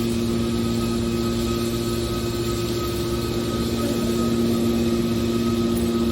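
Hydraulic scrap metal baler's power unit running: an electric motor and hydraulic pump giving a steady hum with a constant pitch, a little louder in the second half.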